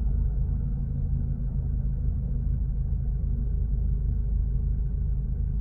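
Mercedes SLK engine idling steadily, a low even rumble. The engine is now starting and running on the replacement ECU, DAS module and ignition lock that cured its no-crank, no-start fault.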